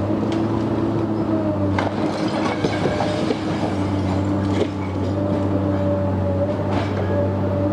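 Komatsu hydraulic excavator's diesel engine running steadily under load as its bucket tears into the wood-framed upper wall of a house, with sharp cracks of splintering wood and siding, about five of them, the clearest about two seconds in.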